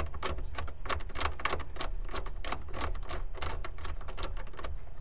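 Hand ratchet clicking as a socket on an extension runs down the nut on the negative main power cable terminal of a Honda Insight IMA battery: a quick, slightly uneven string of sharp clicks, several a second.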